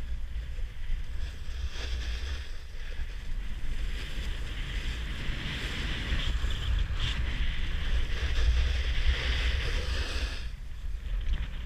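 Wind rumbling on the microphone of a body-mounted camera while sliding down a groomed slope, with the hiss of edges scraping over packed snow that swells through the turns and drops away sharply about ten and a half seconds in.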